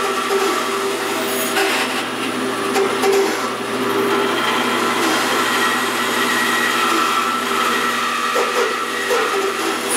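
Bandsaw running steadily while its blade cuts through a rubber hockey puck.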